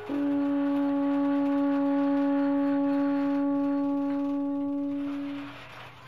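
A wind instrument holding one long steady note that fades out after about five seconds.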